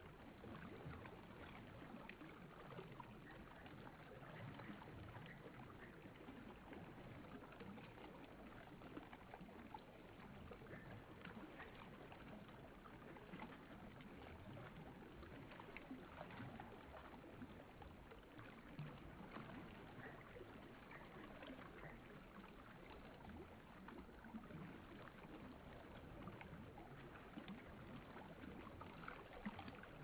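Shallow river water running over rocks and stones: a faint, steady babble of small ripples and splashes.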